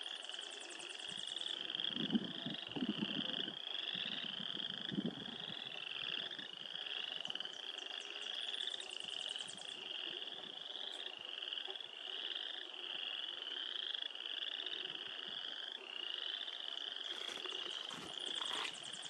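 A chorus of frogs calling: short, slightly rising trilled calls repeating more than once a second without a break. A fast, high ticking trill joins in briefly near the start and again about halfway through.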